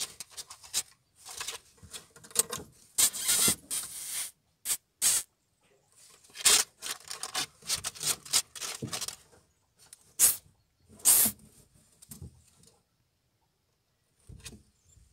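A ferret scrabbling and burrowing in its wooden nest box, scratching and rustling the foam and fleece bedding in irregular bursts. The bursts stop for a quiet spell near the end.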